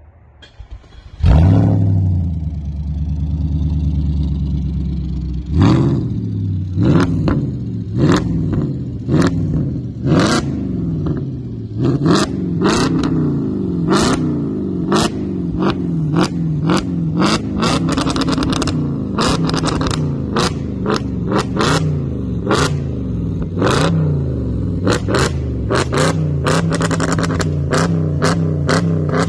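Audi S5's 4.2-litre V8 with a downpipe exhaust and stage 1 ECU tune, fired up about a second in and settling to a steady idle. It is then revved in repeated short throttle blips, the pitch rising and falling about once a second, with sharp pops among the blips. Near the end it returns to a steadier run.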